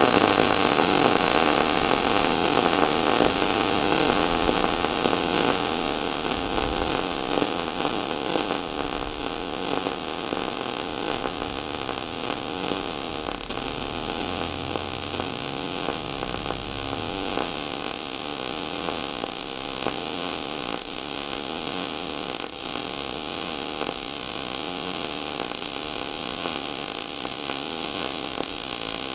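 MAG welding arc burning steadily with a continuous crackling hiss while a vertical-up root weld is laid on 4 mm plates at 80 amps and 5.4 m/min wire feed.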